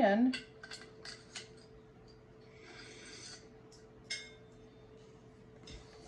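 Light clicks and clinks of metal shepherd's hook parts (pole and base frame) being handled and fitted together, with a short rubbing scrape about three seconds in and one more click a second later.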